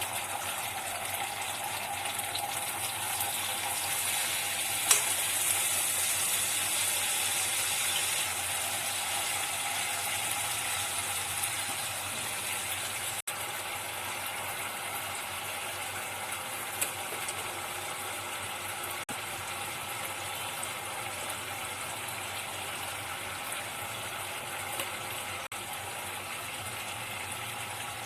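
Food frying in hot oil in a pan, a steady sizzle with a few sharp clicks of a utensil against the pan.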